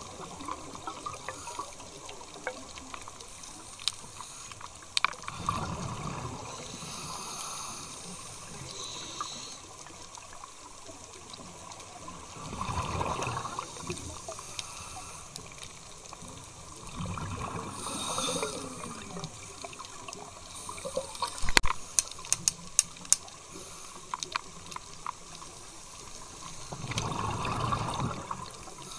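Underwater recording: a scuba diver's exhaled bubbles rushing and gurgling past the camera in four bouts a few seconds apart. A quick run of sharp clicks comes about two-thirds of the way through.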